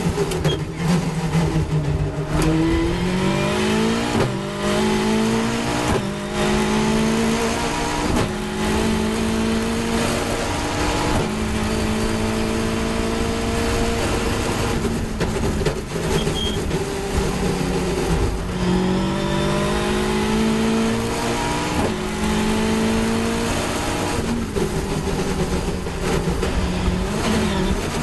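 Caterham 420R race car's two-litre Ford Duratec four-cylinder at full racing effort, heard from the open cockpit. The engine note climbs through three or four quick upshifts in the first eight seconds and holds high. It drops as the car brakes and changes down about halfway through, then pulls up through the gears again, all under heavy wind rush.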